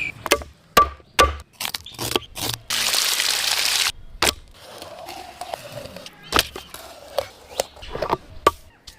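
A series of sharp knocks and cracks from preparing fish for frying, with a loud hiss lasting about a second roughly three seconds in.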